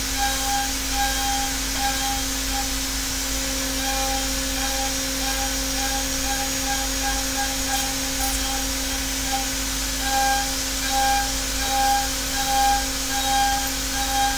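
Hermle 5-axis CNC machining center with a freshly replaced spindle, roughing aluminium. A steady machine tone runs over a constant hiss, with a higher cutting tone that comes and goes, louder and in longer stretches near the end.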